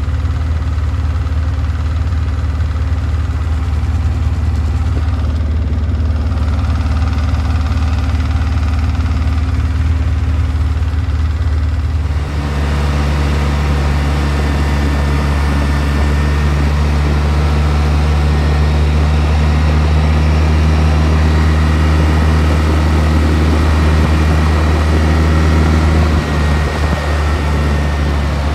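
Off-road vehicle engine running steadily while under way. About twelve seconds in, the engine note steps up to a higher pitch and holds there, then wavers and drops near the end.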